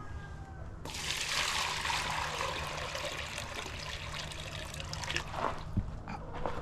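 Water pouring into a chicken waterer. It starts abruptly about a second in, runs strongest for the first couple of seconds, and tapers off after about five seconds.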